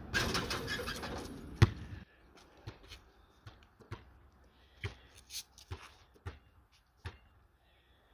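A basketball bouncing on asphalt as a player dribbles before a free throw: a string of single sharp bounces, roughly one or two a second. For the first two seconds a rushing noise covers it, with one loud knock about one and a half seconds in.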